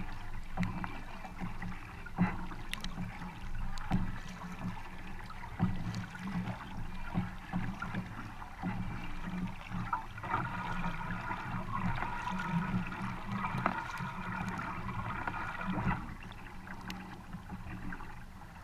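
Double-bladed kayak paddle strokes, the blades dipping and splashing on alternate sides about once every second and a half, over water rushing along the kayak's hull.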